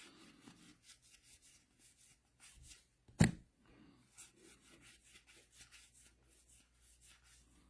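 Baseball trading cards being handled and flipped through: faint rubbing and sliding of card stock, with one short sharp knock about three seconds in.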